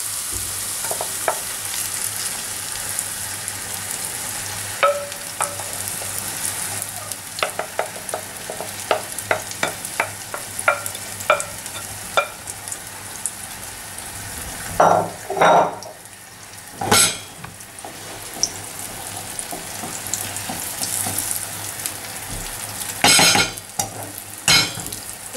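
Chickpea-flour batter and diced courgette frying in oil in a non-stick pan: a steady sizzle. A wooden spoon stirs and spreads the batter, with a run of quick taps on the pan around the middle and a few louder knocks and scrapes later.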